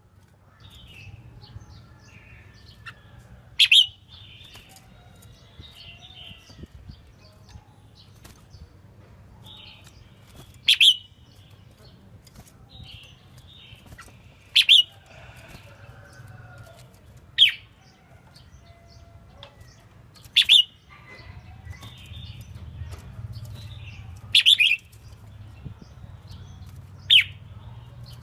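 Red-whiskered bulbul singing: soft, scratchy warbled phrases broken by a short, loud, sharp note about every three to four seconds, seven in all. A steady low hum runs underneath.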